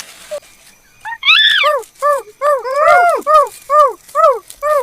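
Chimpanzee calling: after a brief pause, a rapid run of short hoots, each rising and falling in pitch, coming faster as they go.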